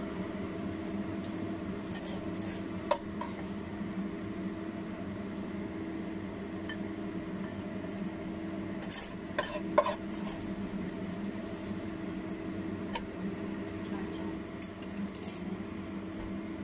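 A spatula stirs chicken pieces in a non-stick pot, knocking sharply against the pot a few times, with the loudest knocks about ten seconds in. A steady low hum runs underneath.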